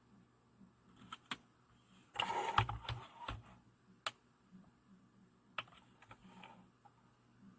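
Small folding pocket knives being handled: scattered sharp clicks, with a short burst of clattering and rubbing about two seconds in.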